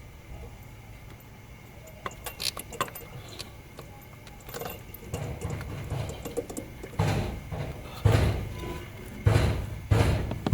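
Scattered light clicks and knocks of metal parts being handled and fitted by hand, growing busier and louder with dull thumps in the second half.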